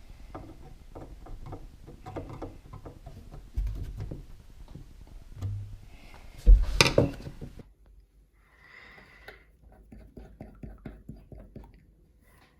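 Small clicks and knocks of hands and metal tools being handled under a sink, with one louder knock about halfway.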